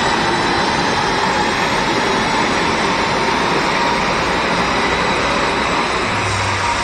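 Mercedes C220d's 2.1-litre four-cylinder turbodiesel pulling hard in fourth gear on a rolling-road dyno, with the driven tyres spinning on the rollers: a loud, steady run.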